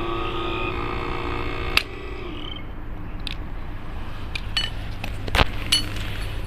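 A 24 V electro-hydraulic backpack pump whines steadily as its hydraulic shears bite into a steel rod, which snaps with a sharp crack about two seconds in; the whine then winds down. A few metallic clinks and knocks follow as the shears and cut pieces are handled, the loudest about five and a half seconds in.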